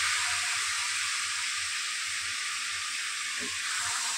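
Steady sizzling hiss of the hot, cooked-down grated bottle-gourd sweet (lauki mithai) in the kadhai on the stove.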